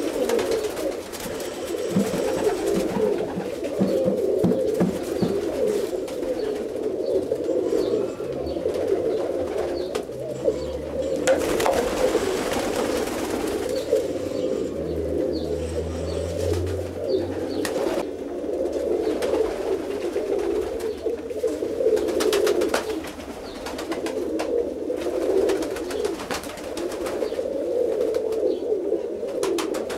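A flock of domestic roller pigeons of the Bijeljina/Janja type cooing together in a continuous overlapping chorus. A few brief sharp clicks stand out here and there.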